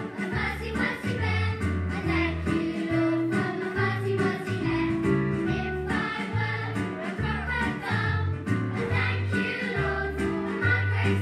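A children's worship song playing: sung voices over an instrumental backing with a bass line that moves every second or so.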